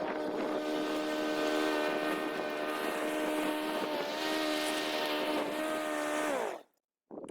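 Petrol lawn mower engine running steadily, then winding down in pitch and stopping about six and a half seconds in as it is shut off.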